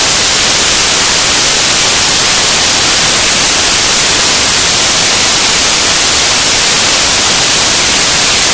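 Loud, steady static hiss of white noise, brightest in the high treble, with no tones or breaks in it.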